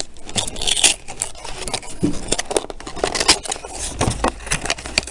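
Small cardboard booster box being handled and prised open close to the microphone: a busy run of scraping, rustling and sharp clicks as fingers work its flap open.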